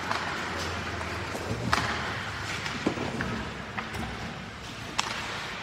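Indoor ice rink ambience: a steady background noise with a low hum in the first second and a half, broken by a few sharp hard knocks, the loudest about a second and a half in and about five seconds in.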